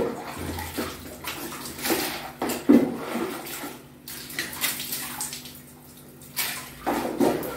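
Water splashing and sloshing in irregular bursts around a plastic bucket while a tiled bathroom is washed, with a sharp knock about two and a half seconds in.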